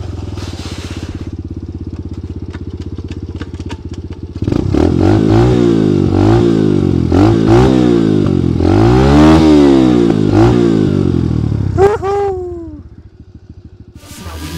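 Regulmoto Pilot 110 pit bike's small four-stroke single idling, then revved up and down several times. The engine note falls away about twelve seconds in.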